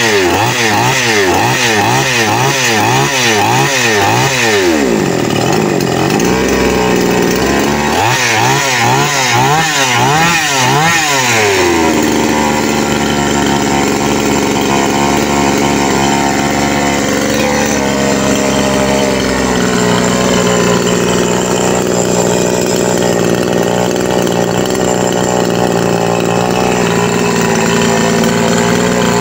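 Two-stroke chainsaw engine running on its freshly cleaned and refitted carburettor, revving rapidly up and down in the first seconds and again a few seconds later. It then settles to a steady run whose pitch steps slightly lower as the carburettor screws are adjusted.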